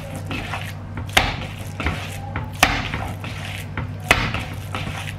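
Ground fish paste slapped by hand against the inside of a plastic mixing bowl: three firm thwacks about a second and a half apart, with lighter knocks between them. The paste is being beaten to make it springier.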